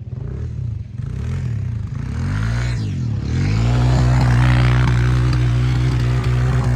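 ATV engine revving up and down, then holding a steady speed from about three and a half seconds in as it grows louder.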